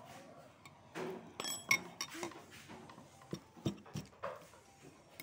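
Metal spoon and fork clinking and scraping in a ceramic noodle bowl while eating, with one sharp ringing clink about a second and a half in and a few low knocks around the middle.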